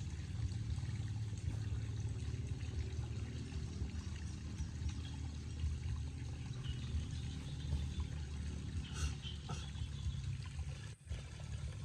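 Water dripping and trickling from a wet baby monkey into a plastic basin of water as it is washed by hand, over a steady low rumble.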